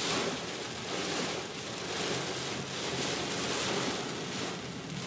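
Heavy storm rain beating on a car's windshield and roof, heard from inside the cabin: a steady rushing hiss that swells and eases.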